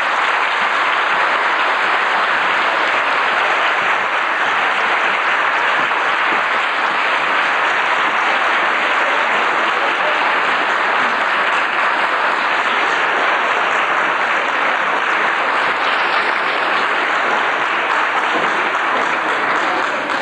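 Audience applauding steadily, a long unbroken round of clapping.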